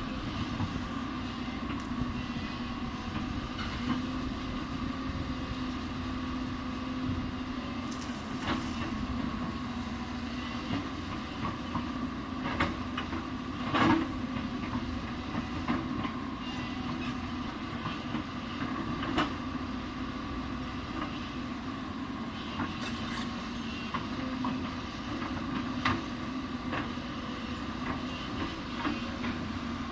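Hyundai 220 crawler excavator's diesel engine running steadily at working revs, with scattered sharp metallic clanks and knocks, the loudest about halfway through.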